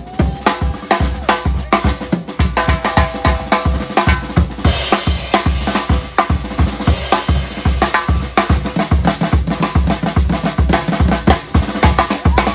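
Drum kit played with sticks in a fast, busy pattern of bass drum and snare strokes, with cymbals ringing over them, thickest about halfway through.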